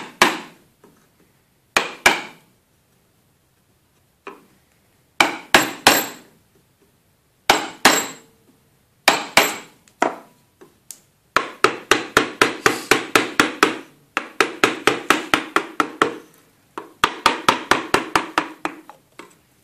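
Mallet striking the handle of a wooden-handled chisel, chopping the waste out of a joint in a wooden frame a little deeper. First a few short groups of two to four taps, then, from about halfway, long fast runs of light taps, several a second.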